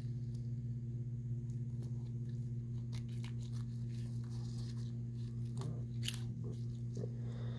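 Dissection scissors snipping through a snake's tough belly scales, a few short snips in the second half, over a steady low electrical hum.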